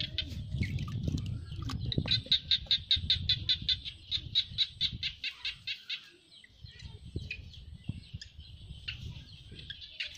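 A bird calling in a fast, even run of high chirps, about eight a second, from about two seconds in to about five seconds in, with scattered single chirps around it. Underneath is a low rumble and a few soft knocks as hands work bamboo tubes into wet mud.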